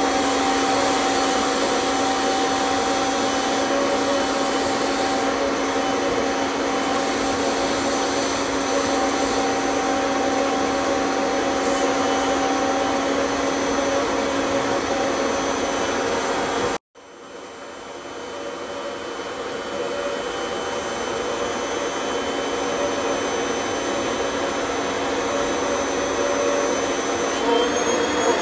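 Canister vacuum cleaner running steadily while its upholstery nozzle is worked over a fabric sofa. About two-thirds of the way through the sound cuts out for an instant, then builds back up to full level over a few seconds.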